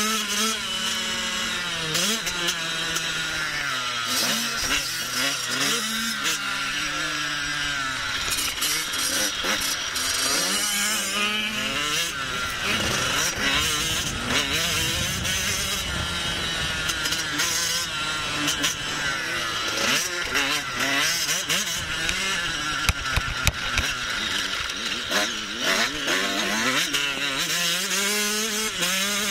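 Husqvarna TC 85 two-stroke motocross bike being ridden, its engine revving up and backing off again and again as the throttle is worked.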